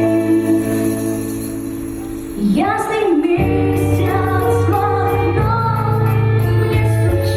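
Romani ensemble song performed live: a sung melody with long held notes over a steady bass and band accompaniment, the voice sliding down and back up about two and a half seconds in.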